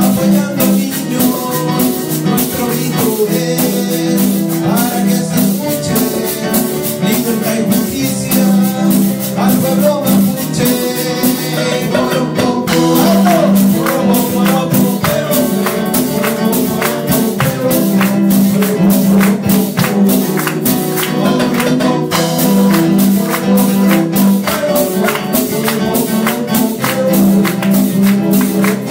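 A live band playing a Latin American folk song: a man singing with acoustic guitar, keyboard and hand percussion keeping a quick, steady beat.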